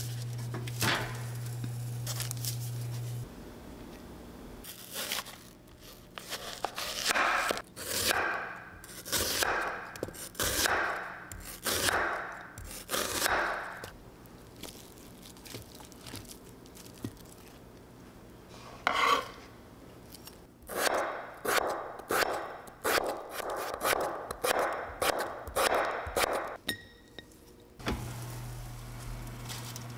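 Handling of kitchenware: repeated scraping and rubbing strokes, roughly one a second, with a few light clicks of dishes. A steady low hum stops about three seconds in and returns near the end.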